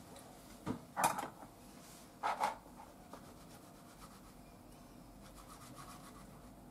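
Kitchen knife and chopsticks working raw pork slices on a wooden cutting board. Two short scraping rubs come about a second and about two and a half seconds in, followed by faint quiet cutting and handling.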